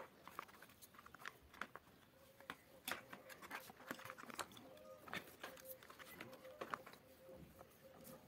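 Faint scattered clicks and taps of hands handling the opened induction cooktop's plastic housing and copper coil assembly as the coil is lifted out, with a faint steady tone underneath from about two seconds in.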